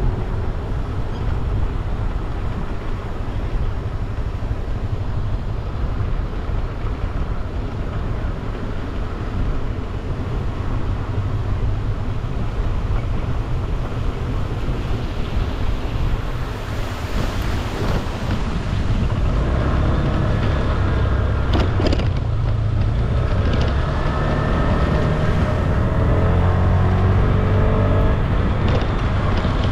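Scooter being ridden: wind rushing over the microphone with the small engine running underneath. In the last third the engine note comes through clearly, its pitch rising and falling.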